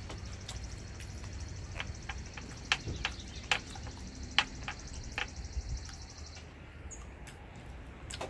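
A cricket trilling in a fast, even high-pitched pulse that stops abruptly about six seconds in, over a low background hum, with a few sharp clicks around the middle.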